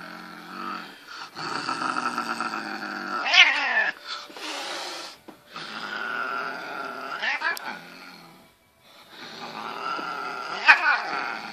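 Agitated domestic cat growling in long, low rumbles, three times over, each growl breaking into a sharp yowl that swoops down in pitch; the yowls are the loudest moments.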